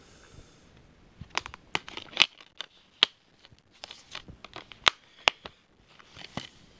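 Plastic Blu-ray cases being handled and snapped shut: an irregular string of sharp plastic clicks and snaps, starting about a second in, with light rustling between them.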